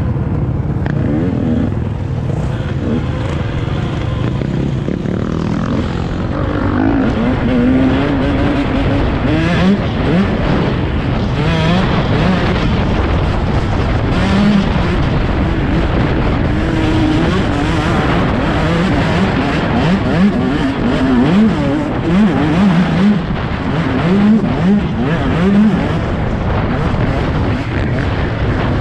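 Dirt bike engine under way on a trail, revving up and falling back again and again as the rider works the throttle and gears, the revs rising and dropping more often in the second half.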